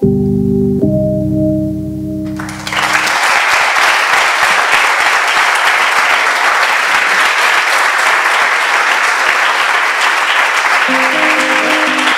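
Closing music of a film reel ending on held chords, then a large audience applauding steadily from about two and a half seconds in; a few held musical notes sound again faintly near the end.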